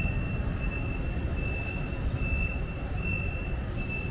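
A high electronic beep repeating at a steady pace, a little more than once a second, over a low steady rumble of background noise.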